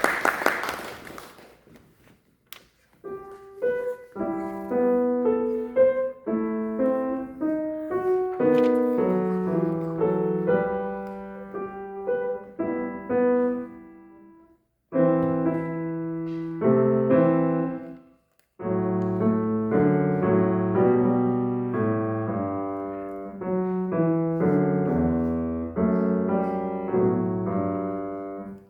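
Piano playing a melody over chords with notes that ring and fade, after a brief burst of noise at the start. It pauses briefly twice and stops abruptly near the end.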